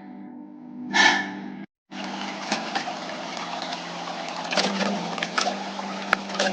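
A bamboo fire crackling, with irregular sharp pops over a steady hiss. A short breathy exhale comes about a second in, and the sound cuts out briefly just before two seconds in.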